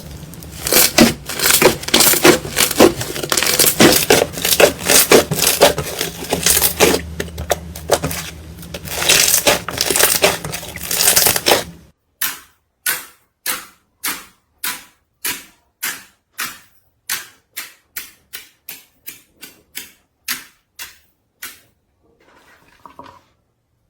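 Slime being handled, with dense, continuous crackling; about halfway in it cuts to a series of separate short crackly squishes, about one a second, that grow softer and closer together before fading out near the end.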